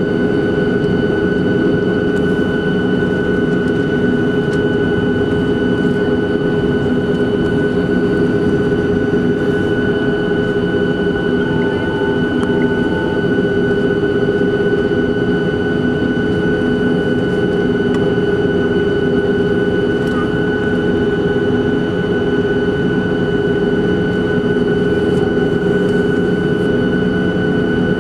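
Boeing 737-700's CFM56-7B jet engines heard inside the cabin over the wing at low taxi power: a steady drone and whine made of several held tones, not rising or falling.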